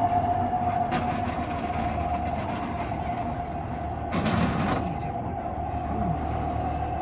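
Rice combine harvester running: a steady high whine from the machinery over the engine's low hum, with a short rush of noise about four seconds in.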